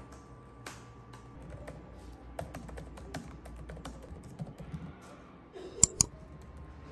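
Typing on a laptop keyboard: irregular light key clicks, then two sharp, louder clicks in quick succession about six seconds in.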